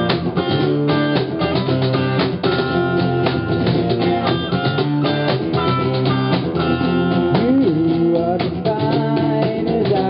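Live pop-rock band music without vocals: a strummed acoustic guitar and an electric guitar over a steady cajón beat.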